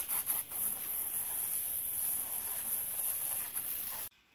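Garden hose spray nozzle hissing as water jets onto a wicker chair to rinse out soap; the spray stops abruptly near the end.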